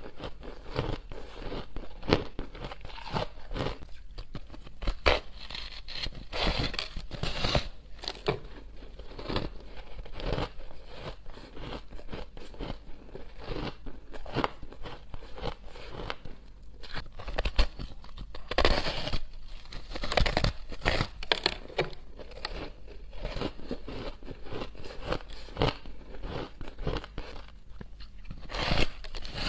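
Close-up crunching and chewing of a block of purple crushed ice, a steady mass of small crackles with a few louder crunches.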